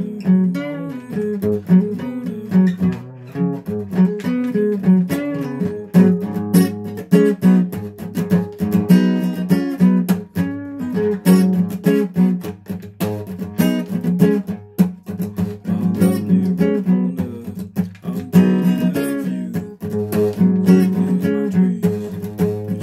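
Guitar played solo: a continuous run of picked and strummed notes and chords, with no singing.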